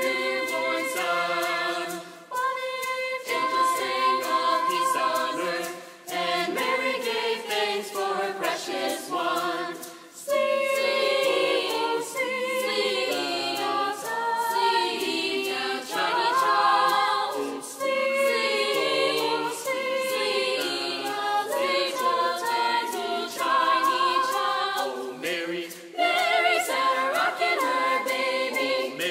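Mixed youth choir singing a cappella in several parts, with phrases broken by short pauses.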